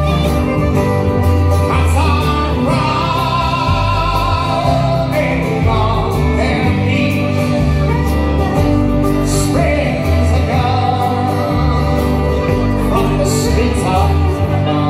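Live folk band playing: acoustic guitar, electric guitar, bass guitar and banjo, with a man singing the lead vocal.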